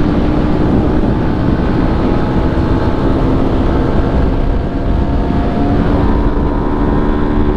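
BMW G 310 GS single-cylinder engine running through an aftermarket "mangote invertido" exhaust as the motorcycle is ridden, a steady, loud engine note with a heavy low end.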